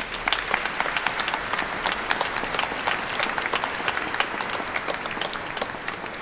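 An audience applauding: a steady, dense patter of many hands clapping.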